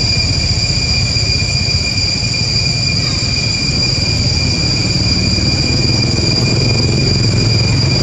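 Steady, high-pitched drone of insects, with a low rumble underneath.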